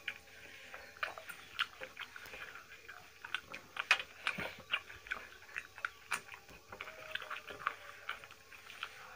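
Close-up eating sounds: chewing and wet mouth clicks as people eat rice and mutton curry by hand, an irregular run of short sharp clicks.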